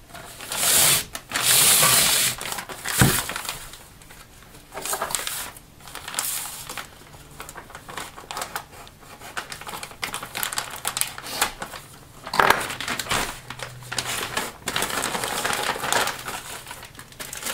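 Pink plastic bags rustling and crinkling in irregular bursts as parts are unwrapped, with a sharp knock about three seconds in.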